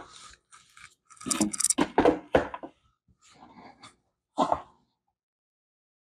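A silicone spatula scraping soft ice cream out of a plastic freezer bowl and knocking it off into a plastic container, in irregular scrapes and knocks with a loud cluster at the start, another about a second in, and a last one near the middle.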